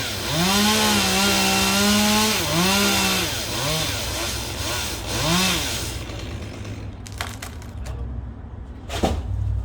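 Chainsaw engine at high throttle, its pitch rising and falling in several revs as it works. About six seconds in it drops back to a low idle, and there is a single sharp knock near the end.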